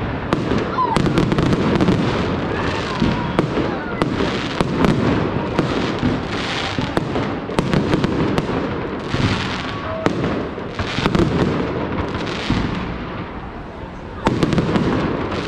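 Fireworks display going off without pause: sharp cracks and bangs over a continuous rumble, with bursts of crackling every second or so. It eases off briefly near the end, then another loud volley follows.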